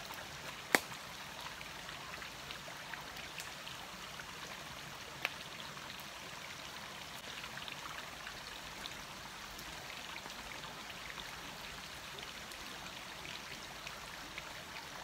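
Small stream cascading over rocks into a pool: a steady rush of running water, with a few sharp clicks, the clearest about a second in and about five seconds in.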